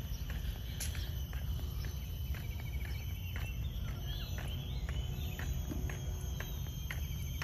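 Island ambience: insects keep up a steady high drone while birds give scattered short chirps, with a few sliding calls about four seconds in, over a constant low rumble.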